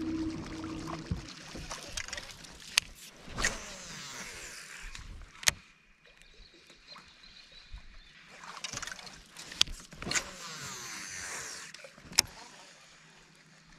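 Baitcasting rod and reel being cast and wound in: two casts, each with a whir of line off the spool that falls in pitch, and sharp clicks of the reel between them. A small electric motor hums steadily until about a second in.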